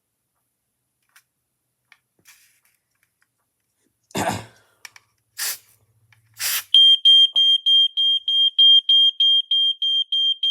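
Two short hisses of canned smoke-test aerosol, then a Probe 105 smoke alarm goes off: a loud, high, piercing tone pulsing evenly about three times a second, the unit responding to the test smoke. A short burst of noise comes just before the hisses.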